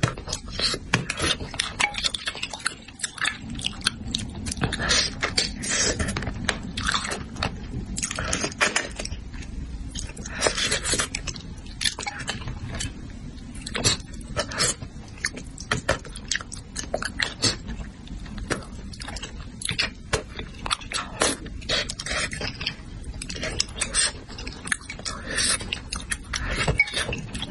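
A person chewing and smacking close to the microphone while eating spicy braised crucian carp: a dense, uneven run of wet mouth clicks and smacks.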